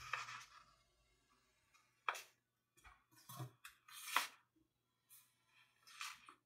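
A sheet of printer paper rustling and crinkling in a few brief bursts as it is folded and pressed into a crease by hand, with near-quiet gaps between.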